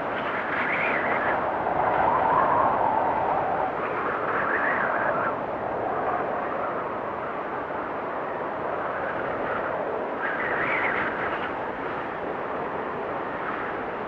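Storm wind blowing hard in gusts, with whistling surges that swell and fade every few seconds, the strongest a few seconds in.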